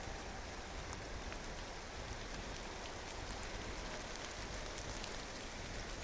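Steady light rain falling, an even hiss with a few single drops ticking.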